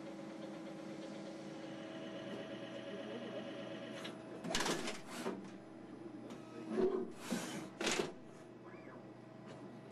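CNC turning center with upper and lower tool turrets running, a steady mechanical hum with a faint whine. About four and a half seconds in, and again around seven seconds, it is broken by several short, loud bursts of hissing noise.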